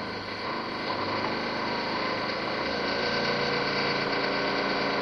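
A machine running with a steady drone and several held whining tones, getting slightly louder about a second in.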